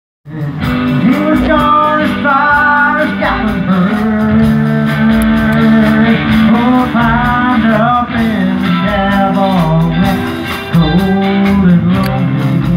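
Live country-style song amplified through stage PA speakers: a voice singing a melody over guitar and backing accompaniment.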